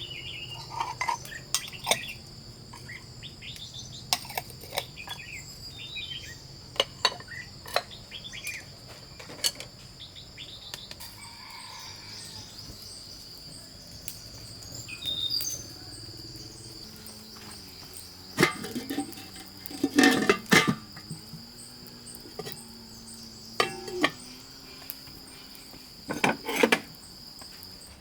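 A steady high insect drone, crickets or cicadas, with scattered bird chirps. It is broken by short knocks and clatter, loudest in clusters about two-thirds of the way through and again near the end.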